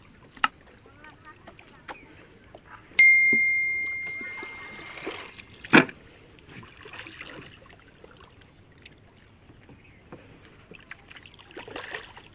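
A single metallic ring, struck once about three seconds in, a clear bell-like tone dying away over about two seconds. A sharp knock follows a few seconds later, amid faint water splashing and trickling.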